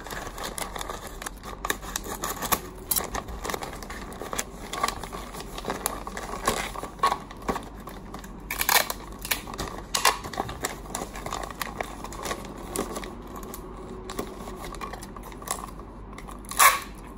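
Gift-wrapping paper crinkling and rustling as it is folded and pressed around a box, with scattered sharp crackles. Near the end, clear tape is pulled off a tape dispenser.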